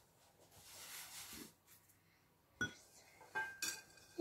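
A hand sweeping flour across a wooden pastry board, a soft brushing hiss in the first second and a half. A single sharp clink follows a little past halfway, and a child's voice starts faintly near the end.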